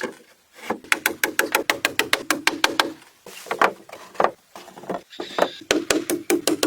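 Music with a fast, even percussive beat of about six hits a second over a low sustained tone; the beat breaks off for a couple of seconds in the middle and then resumes.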